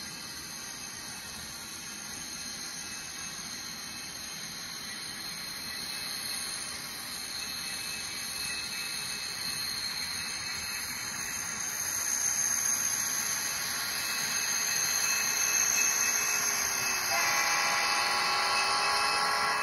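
N scale model diesel locomotives running on a layout: a steady, high-pitched whine from their motors grows louder as the trains approach. About three quarters of the way in, a lower hum with many overtones joins as a locomotive passes close by.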